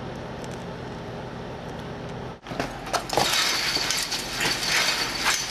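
A steady hiss, cut off suddenly a little over two seconds in. Then louder rough noise with scattered knocks and scuffing from two people fighting hand to hand.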